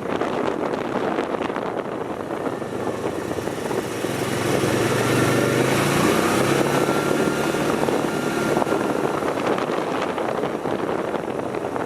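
A motor vehicle's engine running, growing louder about a third of the way in and easing off toward the end.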